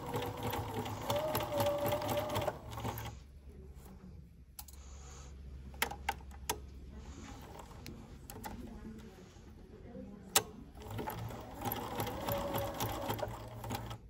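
Bernina domestic sewing machine with a walking foot sewing a zigzag stitch through stretch fabric and cup padding, running steadily with a light whine for about three seconds, then stopping. A few sharp clicks follow in the pause, and the machine starts sewing again about eleven seconds in.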